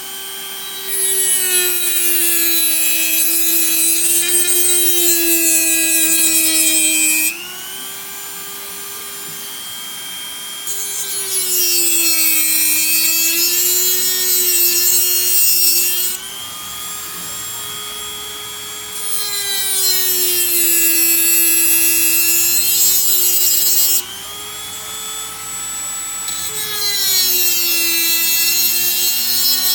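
Dremel rotary tool cutting through the connecting tabs on a pack of 18650 lithium-ion cells: the motor whines steadily while four cuts of a few seconds each add a loud harsh grinding hiss, with the tool running freely in the short gaps between them. The whine sags slightly in pitch while cutting.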